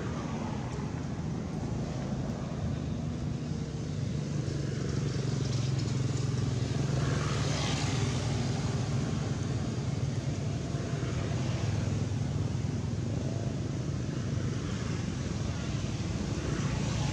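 A low, steady engine hum that grows louder about four seconds in and then holds.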